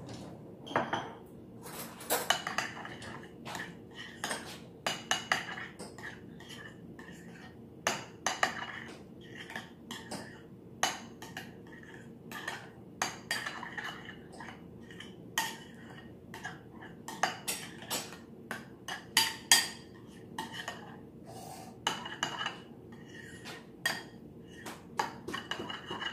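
A metal spoon or fork clinking and scraping against a glass mixing bowl while a thick egg and mayonnaise spread is stirred, in quick irregular clinks.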